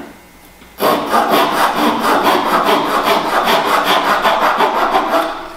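Small razor saw crosscutting a small piece of wood square in a miter box, with rapid, even back-and-forth strokes that start about a second in and stop just before the end.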